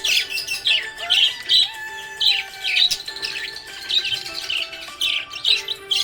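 Small pet parrots chirping and twittering in quick repeated short calls, several a second, over background music with held, stepping notes.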